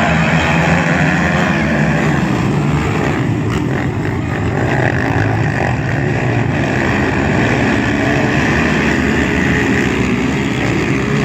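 Racing ATV engines running together at high volume, holding steady with only slight changes in pitch.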